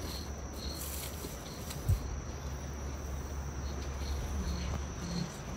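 Insects chirping: a short high chirp repeating about twice a second over a steady high drone, with a single dull low thump about two seconds in.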